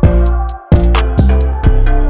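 Background music with a steady beat of deep bass drum hits and crisp hi-hat ticks under a melody.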